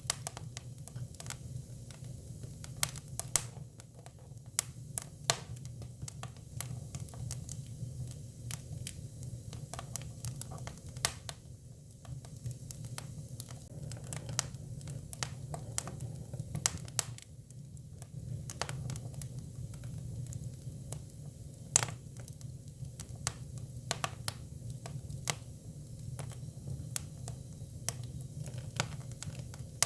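Japanese cypress (hinoki) firewood burning, crackling with irregular sharp pops of varying loudness over a steady low rumble.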